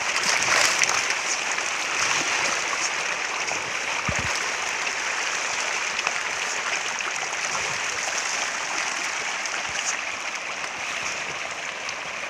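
Steady splashing water with many small splashes throughout.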